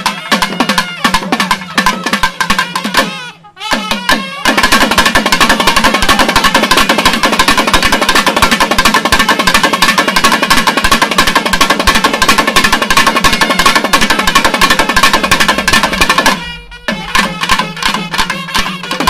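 Thavil drumming. Separate strokes for the first few seconds give way, after a brief break, to a fast continuous roll lasting about twelve seconds, then spaced strokes return near the end. A steady low drone sounds underneath.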